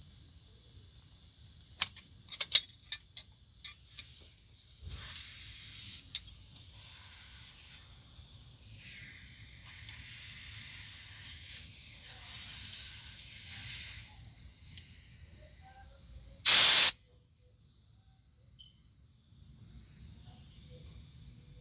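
Compressed air from an air-compressor blow gun hissing in spurts while blowing built-up gunk out of a tankless water heater's water filter, with a few sharp clicks near the start. One loud, short blast comes about three-quarters of the way through.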